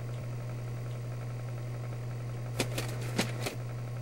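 Steady low hum with a few short, sharp clicks a little past halfway through.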